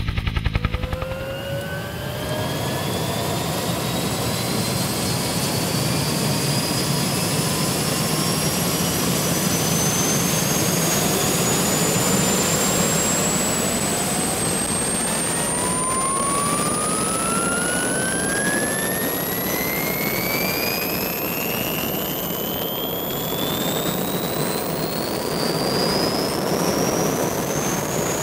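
A steady rushing noise with several whining tones that climb slowly and steadily in pitch, like an engine spooling up. A rhythmic thumping stops about a second in.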